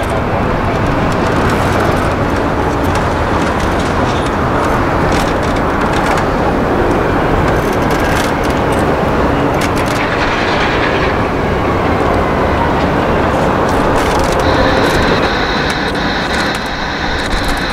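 Airbus A350-900's Rolls-Royce Trent XWB jet engines running as the airliner taxis, a steady rushing roar. A high whine joins it about fifteen seconds in.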